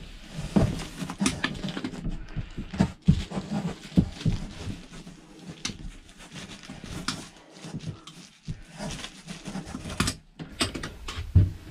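Irregular rustling, scraping and light knocks from a hand and arm working through an opening in a travel trailer's ceiling, feeling around the cavity between ceiling and roof where the insulation goes.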